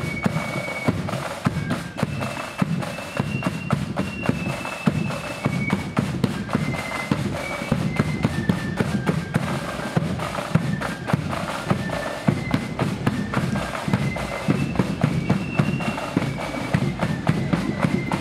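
Marching flute band playing a march: flutes carrying a high melody over rapid snare drumming and a steady bass drum beat.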